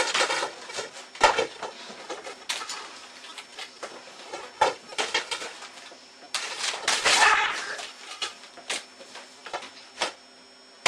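Knocks and clattering clicks from a computer keyboard being hit, with a shrill, strained yelling voice for about a second and a half past the middle.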